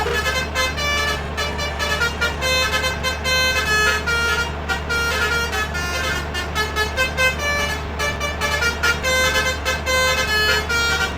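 Bus 'telolet' musical horns (basuri-style multi-tone horns) sounding a quick run of short, changing notes like a tune, over a steady low drone.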